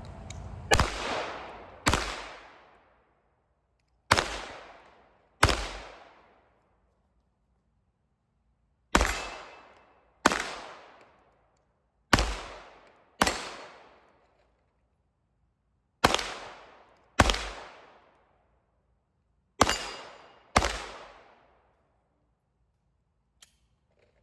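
Handgun fired in a drill: twelve shots in six pairs, each pair about a second apart, with pauses of two to three seconds between pairs as the shooter moves from target to target. Each shot is a sharp crack with a short ringing tail.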